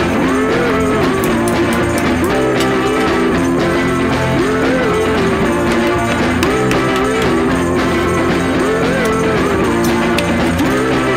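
Rock-and-roll music with guitar.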